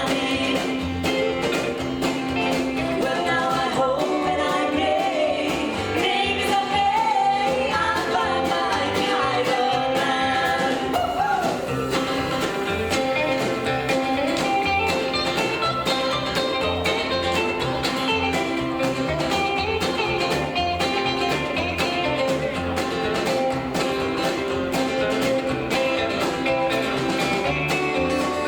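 Live rockabilly band playing a song: a singer over electric guitar, bass and drums keeping a steady beat. The vocal line is mostly in the first part, followed by a stretch led by the instruments.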